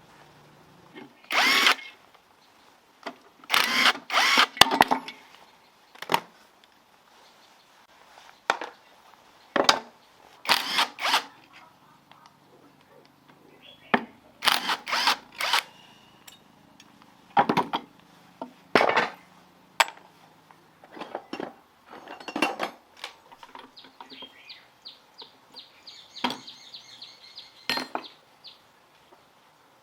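A power tool runs in short, irregular bursts, about a dozen in all, on the small gasoline engine, as when fasteners are being driven out or in. Near the end there is a fainter fast run of clicking.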